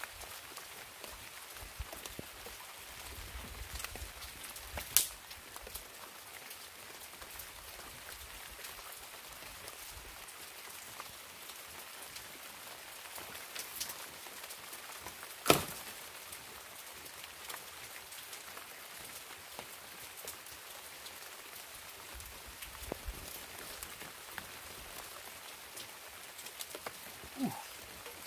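Light rain pattering steadily on leaves and branches, with many small drip ticks. Two sharp cracks ring out, about five and fifteen seconds in, and a short rising squeak comes near the end.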